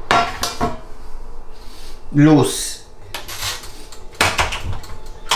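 A series of sharp clinks and knocks of kitchenware being handled at a home oven as a bowl of pizza dough is set inside.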